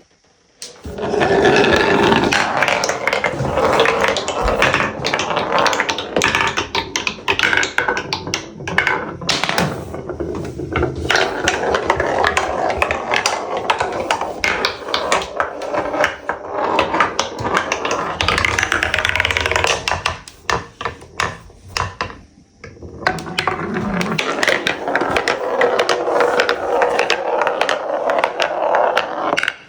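Many glass marbles rolling and clattering down a mixed marble run of plastic Trix Track and wooden HABA pieces: a dense, continuous run of clicks and rattles, with a short lull about two-thirds of the way through.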